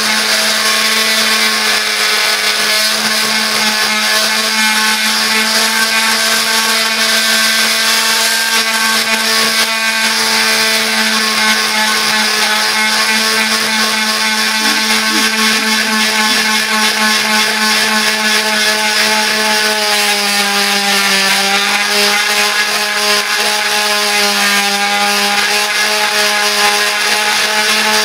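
Oscillating multi-tool with a long plunge-cut saw blade running steadily while cutting into a wooden slab: a constant buzzing hum over a rasping hiss, its pitch dipping slightly about twenty seconds in.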